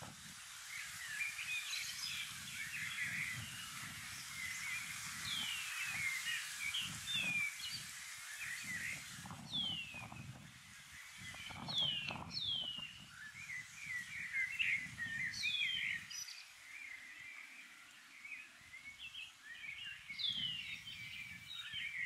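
Several shining cuckoos calling to each other: clear whistled notes that slide down in pitch, heard about half a dozen times, over a busy twittering of short chirps.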